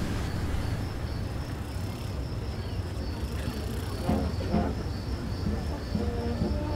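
Insects chirping in a steady, evenly pulsed high trill over a constant low rumble, with faint music coming in near the end.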